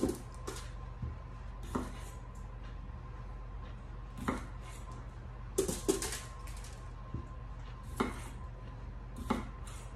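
Kitchen knife cutting through small red potatoes onto a wooden cutting board, making sharp, irregular knocks every second or two, a quick cluster of three about six seconds in.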